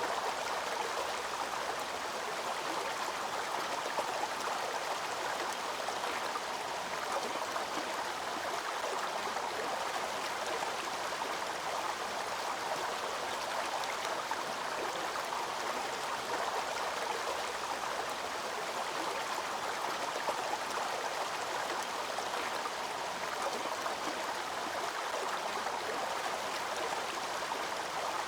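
Waterfall water falling and rushing over rocks, a steady, unbroken rush of water.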